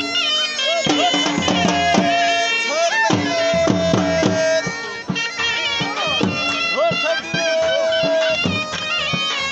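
Background music in a folk style: a melody with sliding notes over a regular drum beat.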